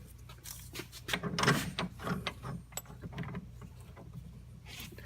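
Irregular metallic clicking and clinking from a bearing press setup as steel adapter discs are stacked on its long threaded bolt and the tool is worked down, loudest about a second and a half in.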